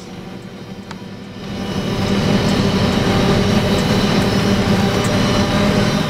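Corn harvester running while cutting standing corn, heard from inside the cab: a steady machine drone with a low hum that grows louder about a second and a half in.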